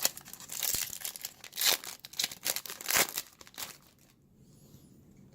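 Foil wrapper of a Topps Chrome baseball card pack crinkling and tearing open in a run of sharp rustles that stop about four seconds in.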